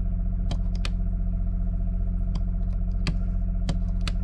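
Several sharp clicks of dash-console rocker switches being pressed, over a steady low hum from the motorhome's running generator.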